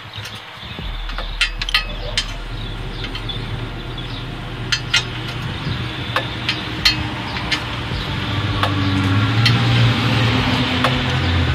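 Socket wrench and long extension clinking against the steel header tubes and flange bolts as the header is bolted on, in irregular sharp metal clicks. A steady low hum runs underneath.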